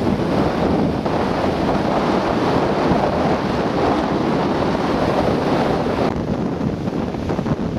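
Wind buffeting the microphone over breaking sea surf: a loud, steady rushing noise. The higher hiss drops off about six seconds in.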